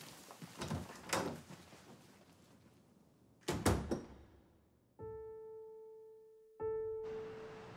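Footsteps, then a door shuts with a single loud thud. About five seconds in, a piano note rings and fades, is struck again at the same pitch, and soft background music comes in under it.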